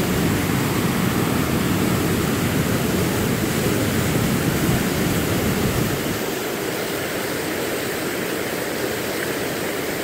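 Waterfall rushing into its plunge pool close by: a steady, dense wash of falling water, a little quieter after about six seconds.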